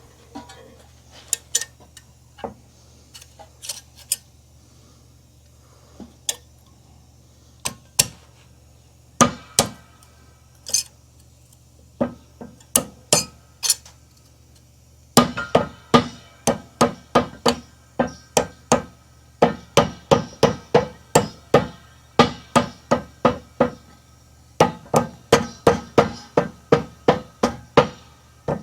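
Hammer blows on metal as a new wheel bearing for a 2006 Honda Accord is tapped into its housing. The blows are scattered at first, then steady at about two to three a second from about halfway on, each with a brief metallic ring.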